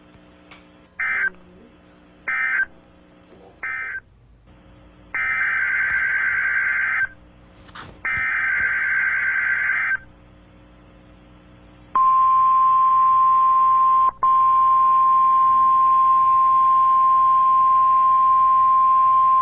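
Emergency Alert System data bursts on NOAA Weather Radio: three short warbling squawks, the end-of-message code closing the previous alert. Two longer squawks follow, the SAME header of the next alert. About twelve seconds in, the steady high 1050 Hz weather radio alert tone starts and runs on loudly, with one momentary dropout.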